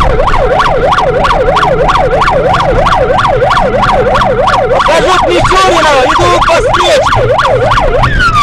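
Emergency vehicle's electronic siren in fast yelp mode, its pitch rising and falling about three times a second. A second siren pattern overlaps briefly about two-thirds of the way through, and near the end the siren drops into one long falling tone.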